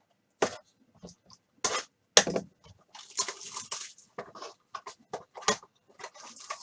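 A sports-card pack being opened and handled: sharp crinkles and taps of the wrapper and cards, with a denser stretch of crinkling about three seconds in.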